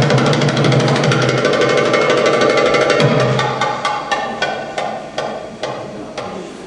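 Belly dance music with drums. About halfway in, the full band drops away to single drum strikes that come further apart and fade out, ending the piece.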